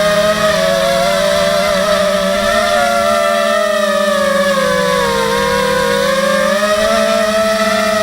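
H250 FPV racing quadcopter's electric motors and propellers whining steadily in flight. The pitch dips about halfway through and rises again as the throttle changes.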